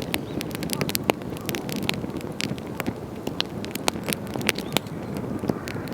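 Wood campfire burning, with irregular sharp crackles and pops from the burning wood over a steady low rush of flame.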